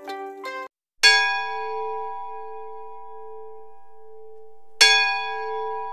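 Plucked guitar music breaks off, and after a moment's silence a bell is struck, about a second in and again near the end. Each strike rings on with a clear pitch and several overtones, slowly fading.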